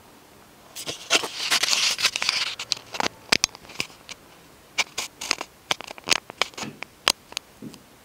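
Paper and pen handling: a scratchy rustle of paper for about two seconds, then a run of sharp, irregular clicks and taps.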